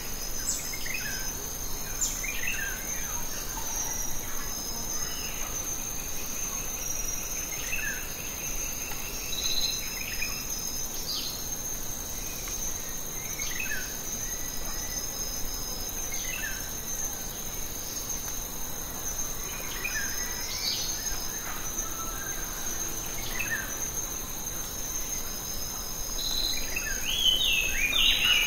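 Insects droning in one steady high-pitched note, with birds calling over it in short falling chirps every couple of seconds and a brief trill; a louder flurry of bird calls comes near the end.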